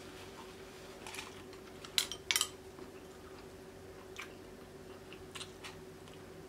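A person chewing food, with a few short sharp wet clicks from the mouth; the loudest pair comes about two seconds in. Later a spoon takes rice from a glass bowl. A faint steady hum runs underneath.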